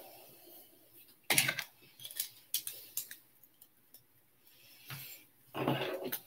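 Plastic LEGO bricks clicking and clattering as pieces are handled, fitted together and picked from a loose pile: a few sharp clicks, the loudest a little over a second in, more around the middle and a cluster near the end.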